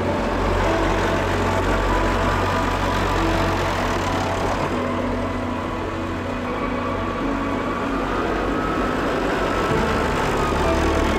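Tractor engine running steadily. It is being tested to check that a noise from the loose four-wheel-drive shaft shield has gone.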